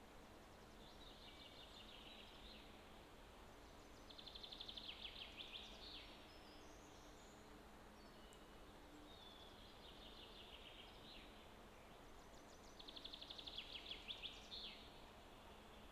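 Faint songbird song: a quick trill of high notes lasting about two seconds, heard twice about nine seconds apart, with softer song phrases in between, over a low steady background hiss.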